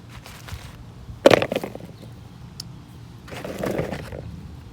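Red potatoes being put into a container on a scale for weighing: a sharp knock about a second in with a short clatter after it, then a longer rustling clatter of potatoes being handled.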